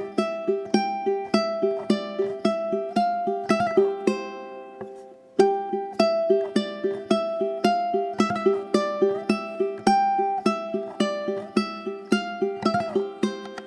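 Gentle instrumental background music: short, evenly spaced melodic notes about three a second, fading out about four seconds in and starting again about a second later.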